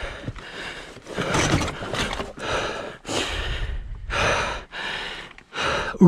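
A person breathing hard and fast, with about seven loud panting breaths in quick succession, close to the microphone: out of breath from the exertion of wrestling a dirt bike up rock.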